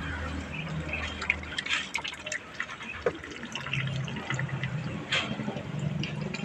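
Ducklings splashing and dabbling in a shallow plastic basin of water: scattered small splashes and drips, one a little louder about five seconds in.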